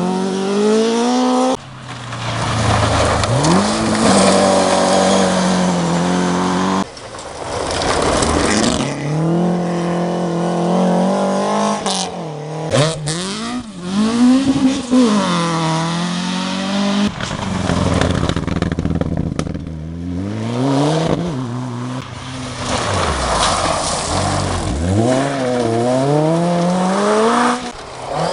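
Rally cars, Ford Escort Mk2s among them, driven hard on a gravel stage. Their engines rev up and fall back again and again through gear changes, with gravel spraying from the tyres. The sound breaks off abruptly a few times between passes.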